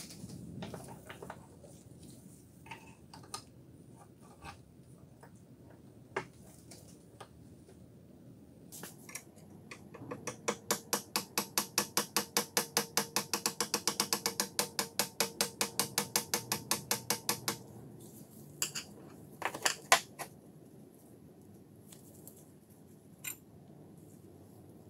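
Rusted steel vernier caliper clamped in a vise being worked by hand, metal clicking on metal: scattered light clicks, then several seconds of rapid, even clicking at about six a second, then a few louder knocks near the end.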